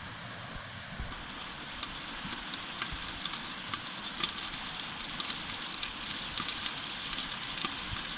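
Fast river water rushing over rocks, a steady hiss. About a second in, the sharp crackling and popping of a small twig fire joins over the river noise.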